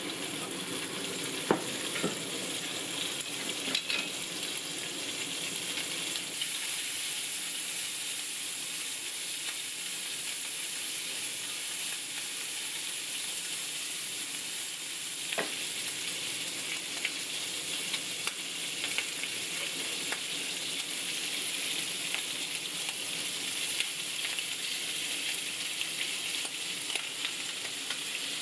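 Bacon sizzling in hot oil in a frying pan: a steady, crackling hiss. A few sharp clicks sound now and then as wooden chopsticks stir the bacon against the pan.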